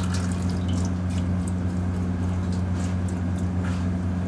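Baked-chicken pan juices poured in a thin stream into a stainless steel hotel pan, trickling and splattering, under a steady low kitchen hum.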